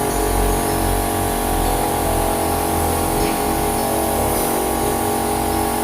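Himax HX-500i electric pressure washer running steadily with its jet spraying: a motor-pump hum under a loud hiss of water.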